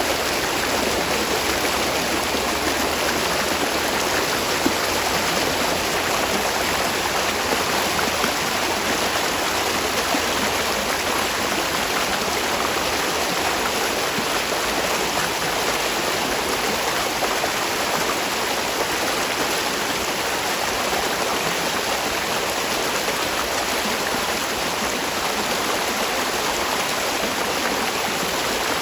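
Spring water flowing in a steady, even rush over rocks, with no breaks or changes.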